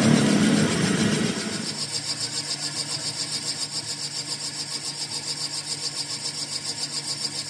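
A machine running steadily with a fast, even pulse of about seven beats a second, after a louder, noisier first second and a half.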